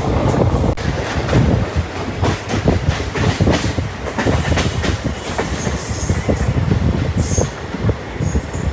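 Passenger train carriage running on the rails: a steady low rumble with irregular rattling clatter from the wheels and running gear, and brief high wheel squeals twice in the second half.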